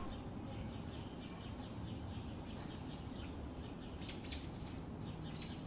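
Quiet woodland ambience: a faint steady background hiss with small bird chirps, and a clearer high chirp about four seconds in.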